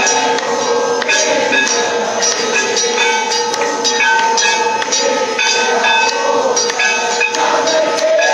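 Temple aarti: bells and metal percussion struck in a fast, even rhythm over steady held tones, loud and unbroken.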